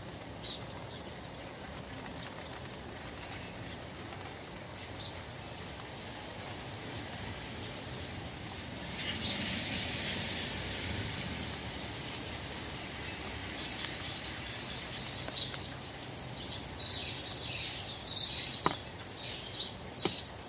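Rain falling on an umbrella canopy: a steady hiss of drops on the fabric. It swells heavier about nine seconds in and again through the second half, with a couple of sharp taps near the end.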